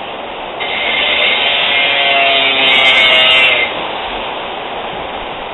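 A power tool runs for about three seconds, starting about half a second in, with a whine that rises slightly in pitch over a steady background hiss.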